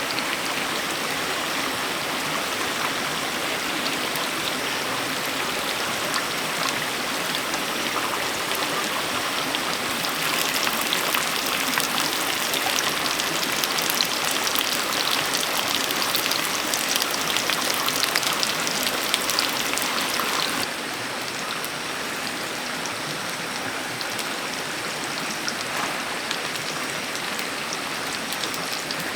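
Steady rushing water with no speech. The sound changes abruptly twice: it turns brighter and more crackling about ten seconds in, then drops back a little after about twenty seconds.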